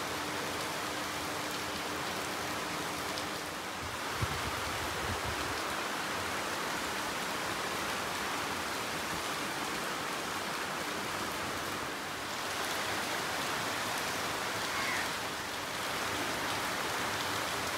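Steady rain falling on leafy garden plants, an even hiss.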